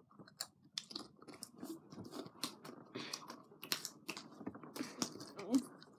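Close-up crunching and chewing of Pringles crisps, a run of irregular sharp crunches.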